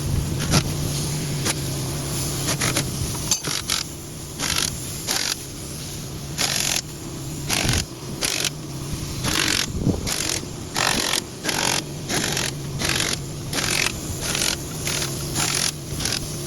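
Repeated short scraping strokes, irregular at first and then about two a second, over a steady low hum.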